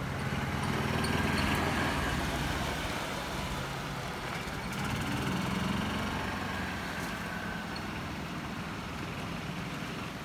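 A motor vehicle's engine running, picking up speed about a second in and again around five seconds in, then easing off.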